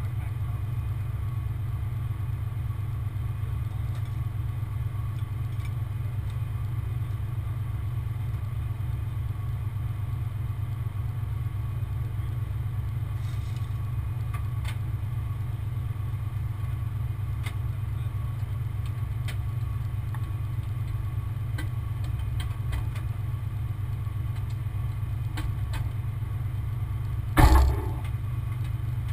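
Heavy truck engine idling with a steady low rumble, with a few light clicks and one loud clank near the end.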